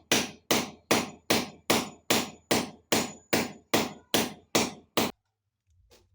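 Hammer blows at a steady pace of about two and a half a second, driving fixings into the wall for a TV mounting bracket, stopping about five seconds in.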